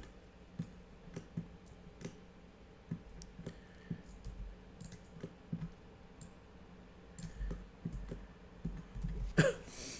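Scattered clicks of a computer mouse and keyboard, about one or two a second, with one louder knock near the end.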